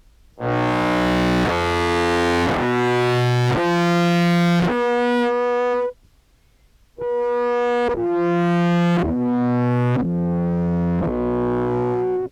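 Contrabass clarinet samples played through an EHX POG2 octave pedal into a Behringer Brassmaster fuzz: two phrases of five distorted, sustained low notes, about a second each, each phrase stopping abruptly with a second's silence between them.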